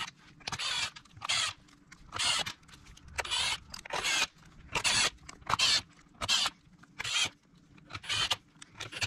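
Milwaukee Fuel cordless driver spinning clutch-cover bolts in, run in a dozen or so short trigger bursts, each well under a second. The bolts are only being run down snug with the power tool, to be torqued by hand afterwards.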